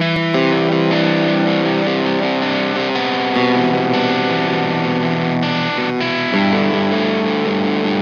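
Rock song intro on electric guitar run through effects and distortion, playing held, ringing chords that change about every three seconds.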